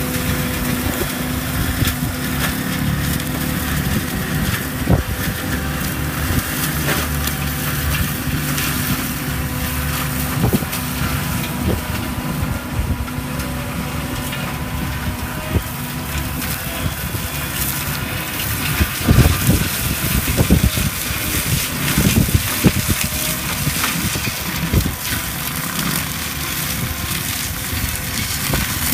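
ASV RT-110 skid steer running a forestry mulcher head: the diesel engine and mulching drum hold a steady working note under a stream of cracks and knocks as the teeth grind up wood. The cracking is thickest past the middle.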